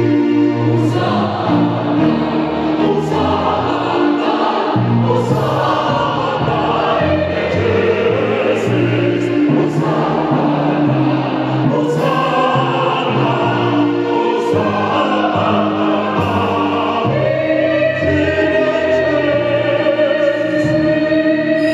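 Mixed choir singing the Sanctus of a Mass in several parts, with sustained chords over a moving bass line. From about two-thirds of the way through, an upper voice holds a long note.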